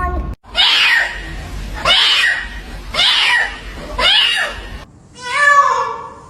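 A cat meowing four times, about once a second, each cry falling in pitch. After a short pause, a longer, lower meow comes near the end.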